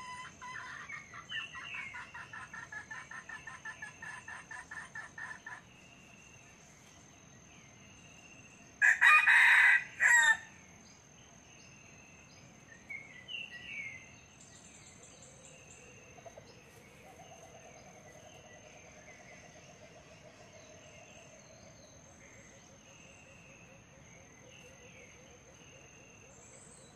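Red junglefowl rooster calling: a rapid run of clucks, about four a second, for the first five seconds, then one loud, short crow about nine seconds in that breaks off abruptly after two parts.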